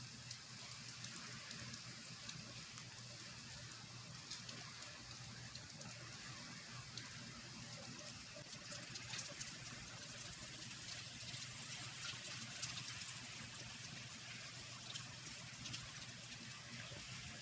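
Steady rain falling, faint, with many small drop ticks through a constant hiss.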